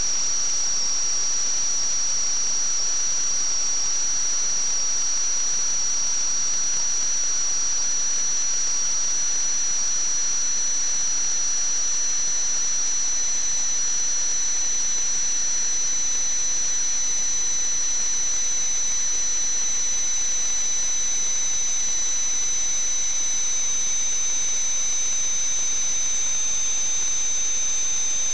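A steady, high-pitched whistle over a hiss, with two pitches held throughout that slowly drift apart.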